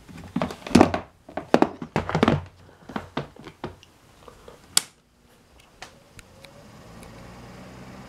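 Plastic True Living box fan being handled and set down: a run of knocks and rattles, then a sharp click a little past the middle. After that the fan starts running, a steady whoosh with a low hum that gradually builds toward the end.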